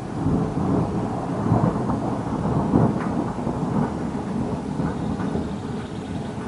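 Rolling thunder: a long, low, irregular rumble that swells in and keeps going.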